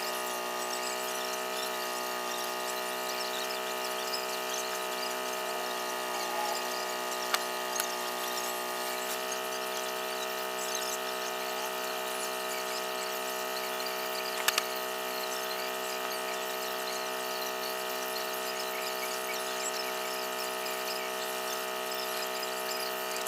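Electric power tool motor running with a steady whine, its pitch shifting slightly about nine seconds in. A few sharp clicks stand out over it, around seven and fourteen seconds in.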